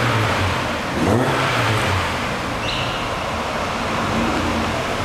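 Porsche 968 ClubSport's 3.0-litre four-cylinder engine idling, blipped once about a second in with a quick rise and fall in revs, then settling back to a steady idle.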